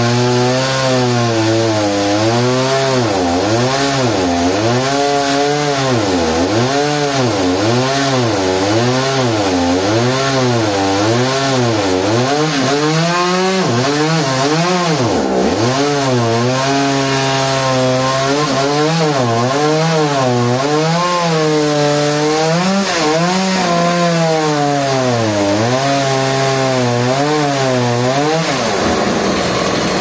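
Two-stroke chainsaw cutting into a trembesi root, its engine speed sagging and recovering about once a second as the chain bogs in the cut. There is one deeper dip about halfway through, and the revs drop briefly near the end.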